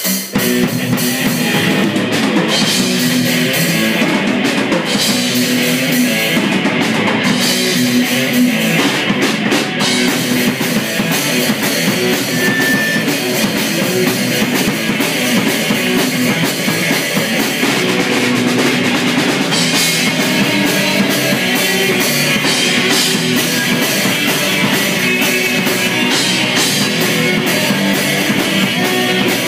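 Rock band playing live: electric guitars, electric bass and drum kit.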